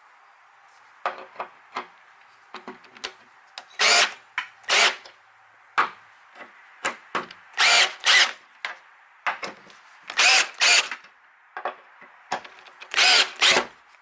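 Cordless impact driver run in short trigger bursts, driving bolts to draw T-nuts down into wood.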